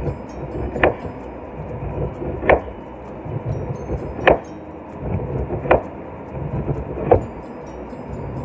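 A large kitchen knife slicing the rind off a standing pineapple in downward strokes. Each cut through the skin ends in a sharp knock as the blade reaches the board, five knocks about a second and a half apart.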